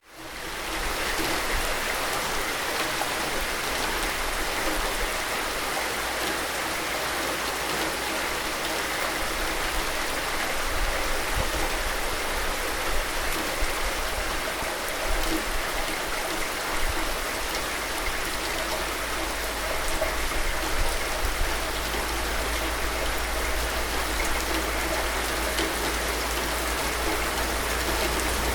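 Steady rain falling, an even hiss of drops that fades up quickly at the start and then holds constant.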